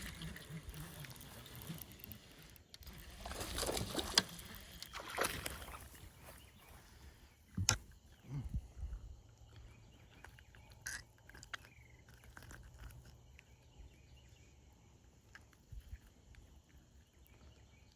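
A hooked largemouth bass being played and landed: water splashing and handling noise, loudest about three to five seconds in, with a sharp knock about eight seconds in and a few softer clicks after.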